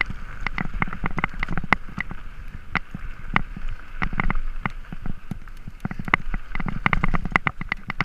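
Mountain bike rattling down a rocky trail: a rapid, irregular clatter of knocks from the tyres, frame and chain hitting over stones, over a steady rushing hiss.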